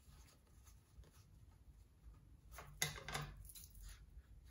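Faint handling of a foam craft sheet and scissors, with a few short, sharp snipping clicks about three seconds in as the scissors start cutting the foam.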